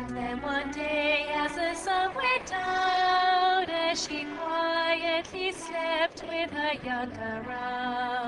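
Background music: a woman singing a slow, held melody over steady low sustained notes.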